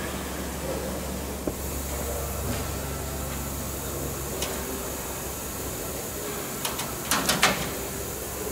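Light metallic clicks and taps from aluminium wing skins and skin pins being handled during fitting, with a quick run of four or five sharp clicks about seven seconds in, over a steady low hum.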